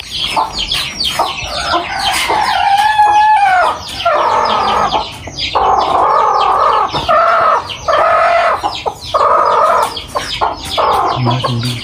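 Chickens clucking, then a run of loud, drawn-out squawks about a second each from about four seconds in, as a hand lifts a broody hen sitting on her eggs.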